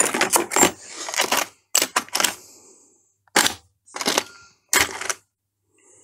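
Small metal tools clinking and clattering as they are handled and set down: a quick run of clicks and knocks for about two seconds, then three single knocks a little under a second apart.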